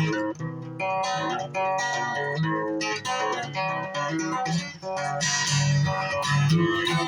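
Guitar in dobro tuning played at a brisk pace: rapid plucked notes ringing over a recurring low bass note.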